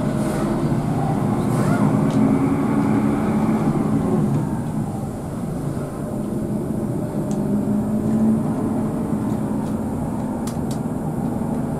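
Hino RK8 coach's diesel engine running on the move, its pitch rising and falling as it speeds up and eases off, with road noise underneath.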